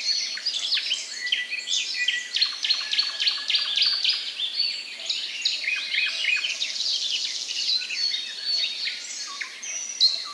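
A chorus of many small birds chirping and calling at once: dense, overlapping short high chirps with no pause.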